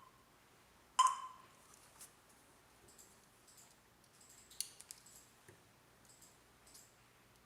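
Touch keypad of an alarm control panel giving one short, sharp beep about a second in, followed by a few faint clicks and taps.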